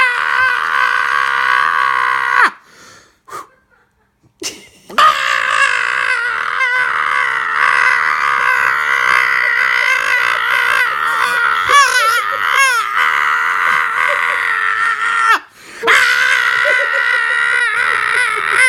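High-pitched, wavering monkey-style squealing vocalization, the monkey character 'reading' the story aloud. It comes in three long stretches, with short breaks about two and a half seconds in and about fifteen seconds in.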